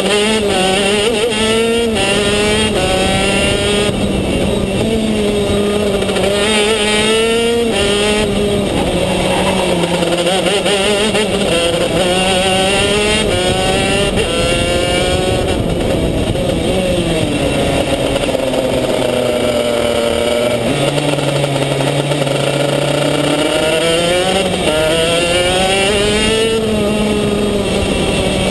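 Racing kart's two-stroke engine heard onboard at speed, its pitch rising on the straights and falling as it slows for corners. The revs drop lowest about two-thirds of the way through, then climb again.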